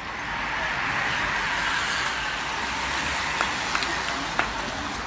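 Racing road bicycles rushing past close by on asphalt: a swelling, then slowly fading whoosh of tyres and rushing air, with a few sharp clicks in the second half.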